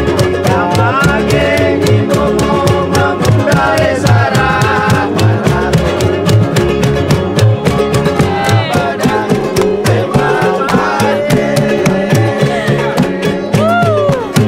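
Upbeat gitar mama string band music with a steady beat: acoustic guitars and small ukulele-like instruments strummed over a plucked bass line, with a voice singing the melody.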